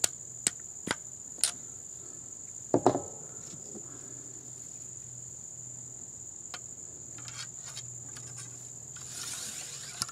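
Ball starter tapping a patched round ball into the muzzle of a CVA Hawken muzzleloader: four sharp taps in the first second and a half, then a louder knock near three seconds. A steady high insect drone runs underneath, and near the end a brief scraping comes as the ramrod goes down the barrel to seat the ball.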